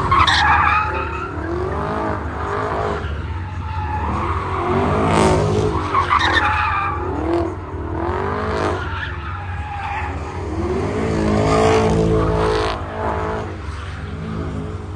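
A car skidding in slides: its engine revs rise and fall again and again while the tyres squeal.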